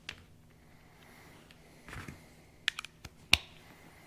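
Scattered sharp metal clicks and taps from hand tools and small parts being handled on a Lucas CAV DPA diesel injection pump during disassembly, with a soft knock about two seconds in and the loudest click about a second later.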